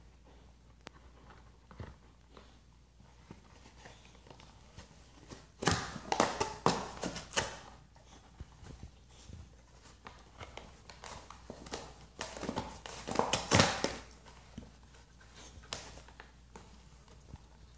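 A boxer dog chewing and tearing at a cardboard box, with two loud spells of crackling rips, about six seconds in and again around twelve to fourteen seconds, and quieter chewing and rustling clicks between.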